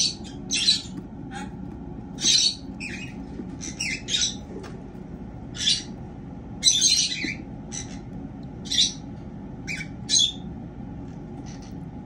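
Cockatiels giving short, harsh, raspy squawks, about a dozen irregularly spaced calls that thin out towards the end.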